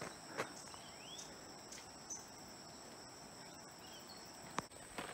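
Faint, steady high-pitched insect chorus in the forest, heard as a continuous ringing drone. A short rising chirp comes about a second in, and two sharp clicks sound, one early and one near the end.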